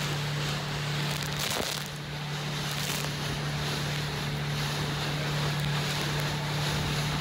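Small motorboat's engine running with a steady hum, under wind on the microphone and rushing water.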